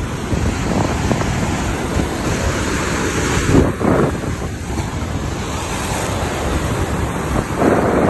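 Lake Erie waves crashing and churning as whitewater over rocks and against a concrete ramp wall, with wind buffeting the microphone. The wash swells louder about halfway through and again near the end.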